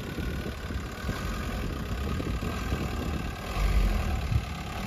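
Van engine running under load while the van sits stuck in soft beach sand. It gets louder for a moment about three and a half seconds in.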